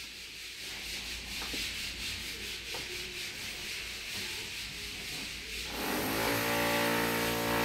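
Drilling from a power drill: a steady hiss at first, then about six seconds in the motor's steady whine sets in and holds.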